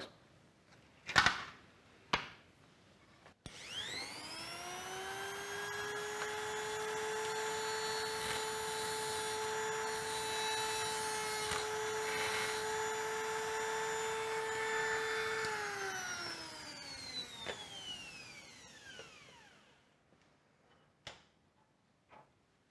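A couple of knocks, then a handheld rotary tool with a small carbide ball-nose burr spins up to a steady high whine. It runs for about twelve seconds while the burr is held in the hole against a broken high-speed-steel spiral tap, then winds down with a falling pitch. A few faint clicks follow.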